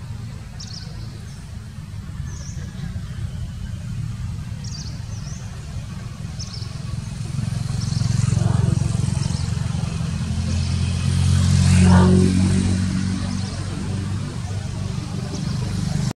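A motor vehicle's engine running nearby, its low rumble growing louder to a peak about twelve seconds in and then easing off. Short high chirps come and go over it.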